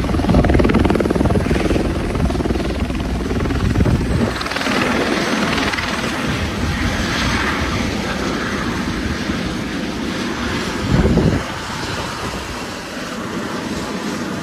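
Helicopter running close by: a heavy low rotor chop for the first few seconds, then a steadier rushing noise. A brief louder low burst comes about eleven seconds in.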